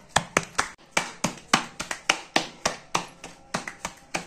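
Thin samosa dough round slapped back and forth between the palms to stretch it by hand: a steady run of sharp, clap-like pats, about four a second.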